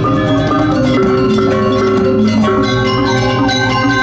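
Balinese gong kebyar gamelan ensemble playing a tabuh kreasi piece: bronze metallophones struck in rapid, dense figures over held, ringing tones.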